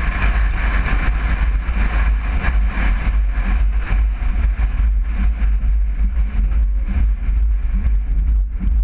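A road vehicle driving, with a steady, heavy low rumble and road and wind noise; the higher part of the noise eases off about halfway through.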